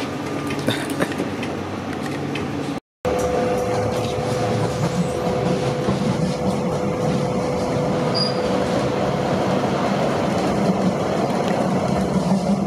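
A Sheffield tram running, heard from inside the passenger saloon: a steady rumble of wheels on rail, with a steady hum through the middle seconds. The sound cuts out for a moment about three seconds in.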